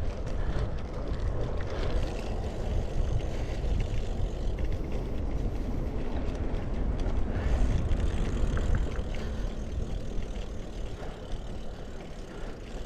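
Wind rumbling steadily on the microphone of a camera carried on a road bicycle as it rides along.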